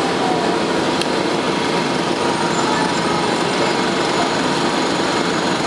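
Interior sound of a 1998 Nova-RTS transit bus: its Detroit Diesel Series 50 four-cylinder diesel running steadily, mixed with the steady blowing of the bus's air conditioning.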